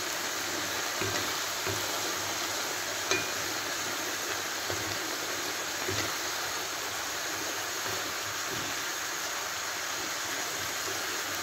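Chicken breast pieces with onions and mushrooms sizzling steadily in a pan of hot liquid, stirred with a wooden spatula that knocks lightly against the pan now and then.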